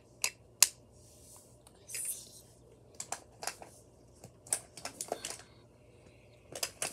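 Small makeup items being handled: scattered sharp clicks and taps, the loudest about half a second in, with a short rustle about two seconds in.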